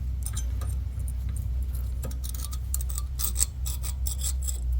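Small metal brake parts, such as pad clip brackets, clinking and scraping as they are handled, a string of light ticks and clicks over a steady low rumble.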